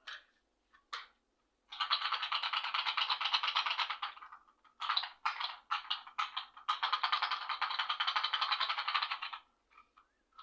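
Fast, dense rattling, as of small hard pieces shaken in a container: two long shaking runs with a few short separate shakes between them.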